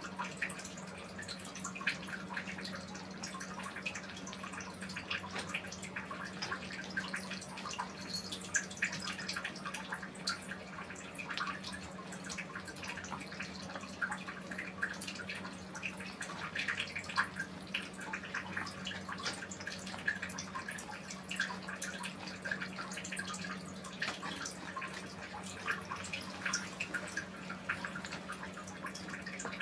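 Kittens eating from bowls: a continuous irregular patter of small wet smacking, licking and chewing clicks. A steady low hum runs underneath.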